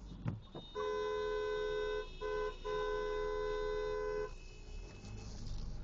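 A two-tone car horn honking: one long blast, a short one, then another long blast, about three and a half seconds in all.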